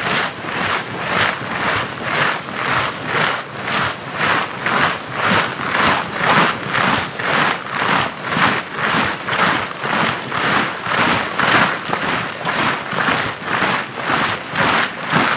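A large column of soldiers marching in step on a snow-covered road, their boots making a steady, even tramp at about two steps a second.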